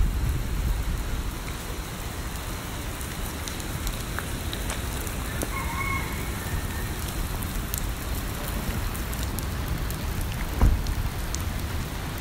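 Steady rain falling, with a scatter of drips ticking on surfaces. A brief chirping call comes about six seconds in, and a single thump near the end.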